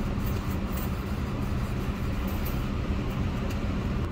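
Car engine and tyre noise heard from inside the cabin as the car moves slowly forward through a toll booth lane: a steady low hum.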